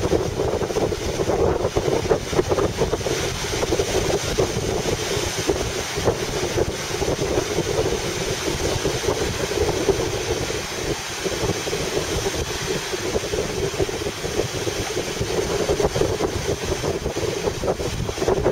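Strong, gusty wind buffeting the microphone, with choppy lake waves washing underneath.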